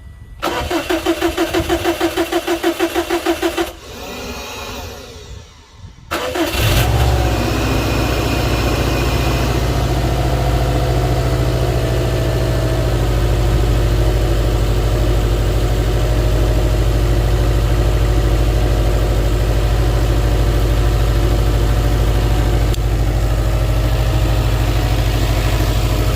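Subaru Impreza's flat-four engine being started on a freshly installed battery: the starter cranks in a quick pulsing rhythm for about three seconds, and after a short lull the engine catches about six seconds in, flares briefly and settles into a steady idle.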